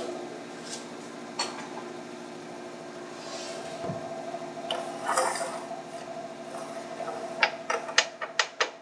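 Cabin running sound of a JR 205 series electric train: a steady hum with a few scattered knocks, then a quick run of sharp clicks close together near the end.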